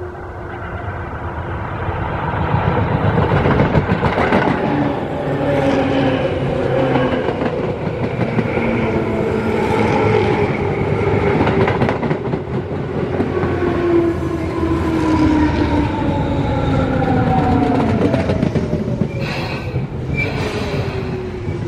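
Tobu 9000 series ten-car electric commuter train approaching and running close past, building to a loud rumble of wheels on rail. A whine from the train slides steadily down in pitch as the cars go by, with a few sharp metallic clacks near the end as the last car passes.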